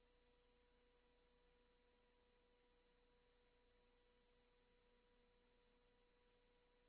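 Near silence, with a faint steady electronic tone and hiss in the audio feed.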